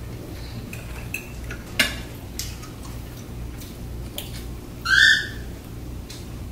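A baby's short, high-pitched squeal about five seconds in, the loudest sound here, with a few light clicks of cutlery on plates before it.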